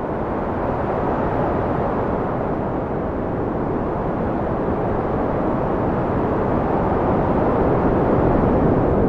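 Wind blowing steadily, a low rushing noise that swells slightly louder toward the end.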